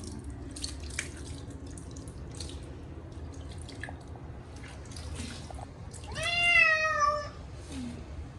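Munchkin cat giving one loud, drawn-out meow about six seconds in, protesting at being bathed, over scattered drips and small splashes of water.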